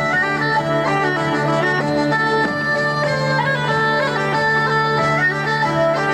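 Folk dance tune played on hurdy-gurdy, button accordion and bagpipes: a quick melody over a steady low drone.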